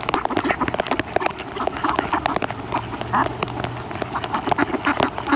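A crowd of mallard ducks quacking close by, short rough calls overlapping, the busiest stretch about two to three seconds in. Many short clicks and taps run underneath.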